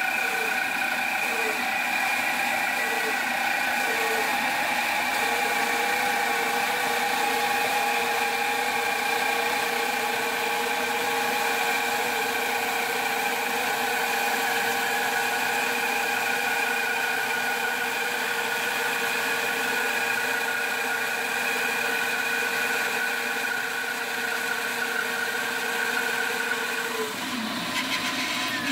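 Bandsaw running with its blade ripping a board lengthwise down the middle: a steady mechanical whine of several tones over a cutting hiss. The lowest tone pulses for the first second or so, then holds steady. The cutting tones fade out near the end, leaving the saw running.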